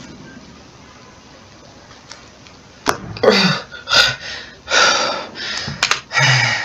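A man lets out a long-held breath with a sudden puff about three seconds in, then breathes hard in about five loud, quick breaths as he recovers from holding his breath for over a minute.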